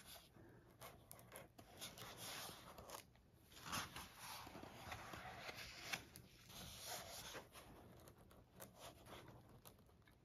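Faint rustling and sliding of paper as a hand turns and smooths the pages of a book, in irregular strokes with a few light clicks.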